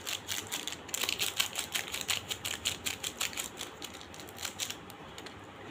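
A plastic coffee pouch being emptied into a bowl: a rapid, irregular run of light crackly ticks that thins out near the end.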